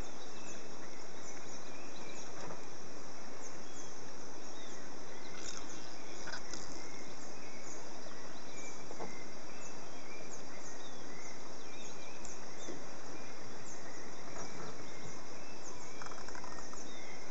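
Steady jungle-river ambience: an even hiss under many short, high chirps and calls from insects and birds, with a few faint knocks or splashes.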